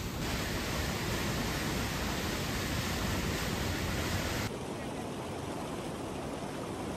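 Rushing river water over rapids, a steady noisy rush. About four and a half seconds in it changes abruptly to a quieter, duller rush.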